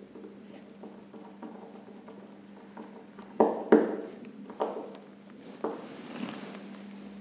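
Hands working wires and a plastic plug-in terminal block at an intercom power supply module: a few sharp clicks and knocks, the loudest two close together a little past the middle. A steady low hum runs underneath.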